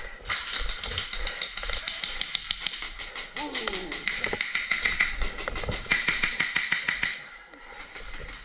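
Airsoft guns firing: a fast, steady stream of sharp clicking shots, many a second, that stops about seven seconds in.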